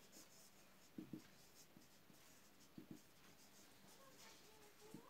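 Very faint scratching of a pen writing on paper in a small room, with a few soft taps.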